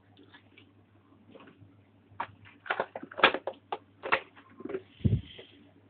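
Kitchen utensils being handled: a run of sharp irregular clicks and taps, with one duller thump about five seconds in.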